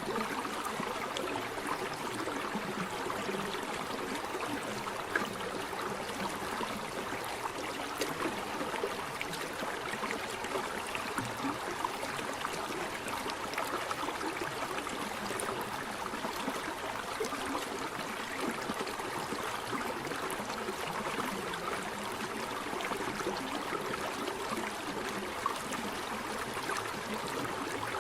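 Waterfall water rushing and splashing steadily, an even unbroken noise with faint scattered splashes.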